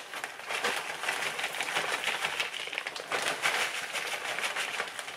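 Potting soil being scooped and poured into a flower pot: a steady rustling crackle of many small ticks.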